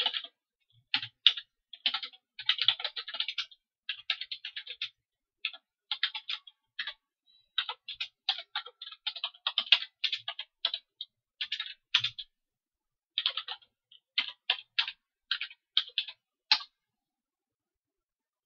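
Typing on a computer keyboard: quick, irregular runs of keystrokes with short pauses between them, stopping with a single sharp keystroke about three-quarters of the way through.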